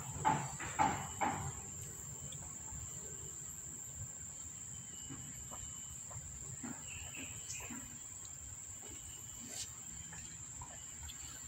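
A steady high-pitched insect drone, like crickets, with a few soft rhythmic smacks, about two a second, in the first second and a half.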